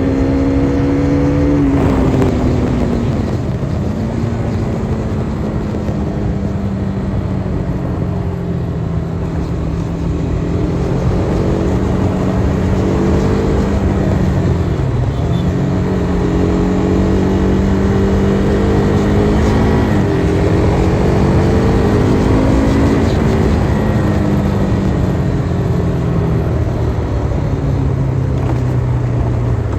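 KTM RC 390's 373 cc single-cylinder engine running under way at fairly steady revs. Its note drops and recovers about two seconds in and again around the middle, as gears change or the throttle eases. It then falls off steadily over the last few seconds as the bike slows.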